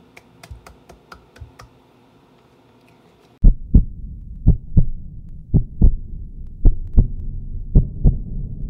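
A few faint clicks, then from about three and a half seconds in a loud heartbeat sound effect: double thumps about once a second over a low rumble, conveying nerves before giving a presentation.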